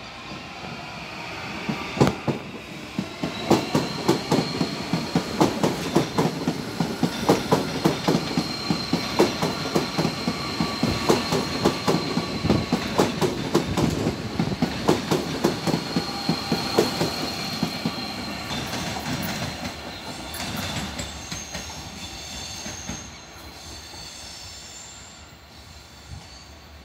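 Electric commuter train passing close by, its wheels clattering over rail joints in a quick, even rhythm, with a high steady whine running through much of it. The clatter fades about twenty seconds in as the train moves off.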